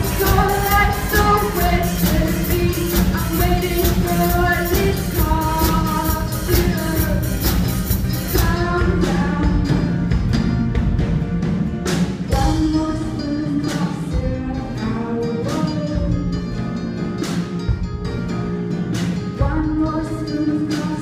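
Live amateur rock band playing with a singer holding long sung notes. A steady wash of cymbals stops about eight seconds in, and after that the drums thin to separate hits under the voice.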